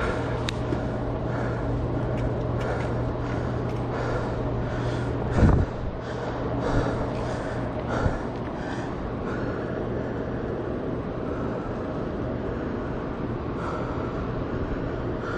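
Wind rushing on the camera microphone over a steady low hum. About five seconds in there is a single heavy thump as the mountain bike comes to a stop, and the hum fades. After that only wind and open-air background remain.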